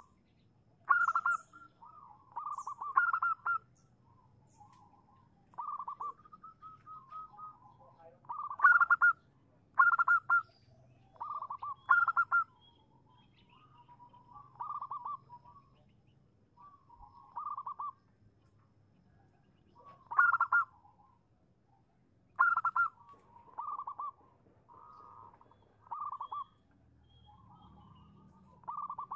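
Zebra dove (perkutut) cooing: a run of short, trilled coos, one every second or two. The loudest coos come about nine to twelve seconds in and again around twenty to twenty-three seconds in. The cooing is a female's call to draw a male into answering.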